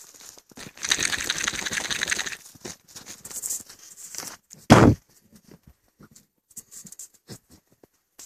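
Rustling and crunching in snow and dry scrub, with handling noise rubbing the phone's microphone. A single loud, low thump comes about halfway through.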